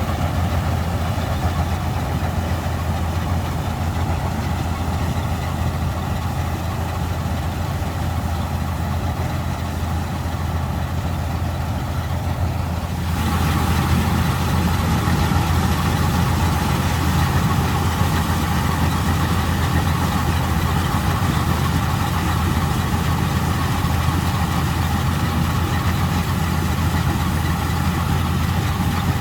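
Vistula KZB-3B combine harvester running steadily while harvesting grain, a deep engine hum under the clatter of its machinery. About halfway through the sound changes abruptly and becomes a little louder and brighter.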